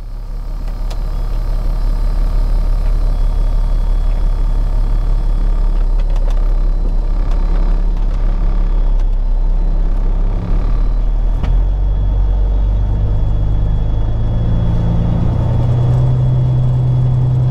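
Peterbilt 379 semi truck's diesel engine running at idle, getting louder and stronger in the last few seconds as the truck pulls forward.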